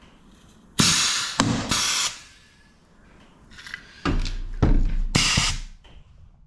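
Rivet gun setting rivets twice: two bursts of hiss, each a second or two long, with sharp snaps inside them as the mandrels break.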